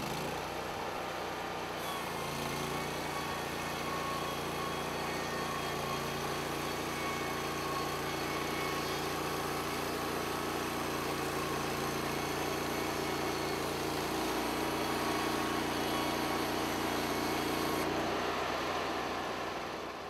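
Norwood LumberPro HD36 portable band sawmill's engine running steadily under load while its band blade cuts through a log. The sound dies away near the end.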